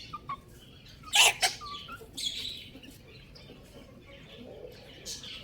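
Baby chicks peeping in short, high calls, with two louder, sharper sounds about a second in.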